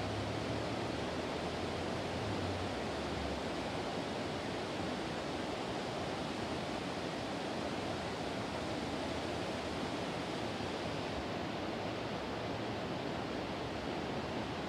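Steady rushing outdoor background noise, even throughout, with no calls from the soaring eagles.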